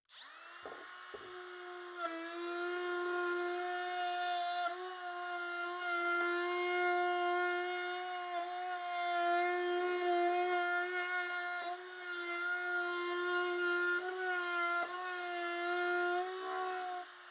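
Compact trim router spinning up, then running at a steady high whine while cutting a round-over on the inside top edge of a plywood drawer box. It gets louder about two seconds in as the bit works the edge, with brief dips in pitch here and there as it bites into the wood, and quietens near the end.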